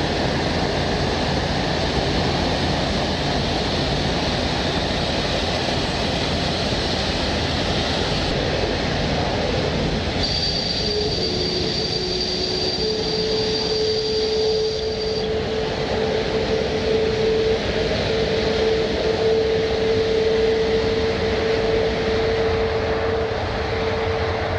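Jet airliner engines running: a steady, loud rush of noise, with a high whine that joins about ten seconds in and drops out a few seconds later, and a lower steady hum from about eleven seconds on.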